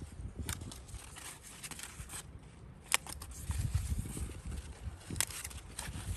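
Rustling and handling noise as eggplant leaves brush against a handheld phone, with scattered sharp clicks and a low rumble.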